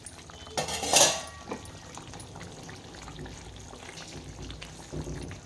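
Thick chicken gravy simmering in a kadai with a low, steady bubbling hiss, the gravy cooked down and thickened. About a second in there is one brief loud noise, louder than the simmering.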